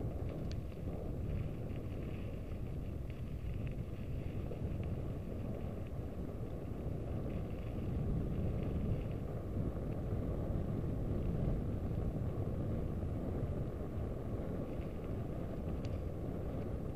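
Steady low rush of wind buffeting the microphone as a mountain bike rides along, with a couple of faint clicks.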